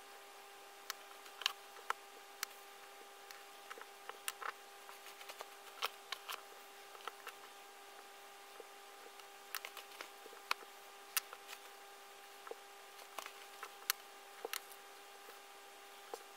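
Faint, irregular taps and scratches of a highlighter marker and fingertips on paper sheets, over a steady faint hum.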